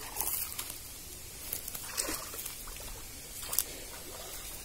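Shallow muddy pond water splashing and sloshing as hands grope through it for fish, with three short splashes.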